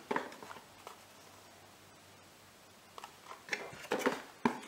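Hands handling boxed parts and cardboard packaging: a few soft clicks and rustles, a quiet pause, then more light clicks and rustling with one sharper tap near the end.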